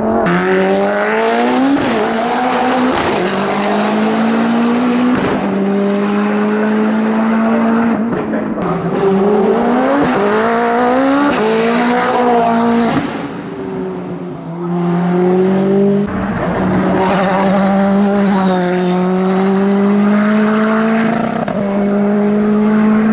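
Race car engine under hard acceleration on a hillclimb, its pitch climbing and then dropping sharply at each upshift, several times over.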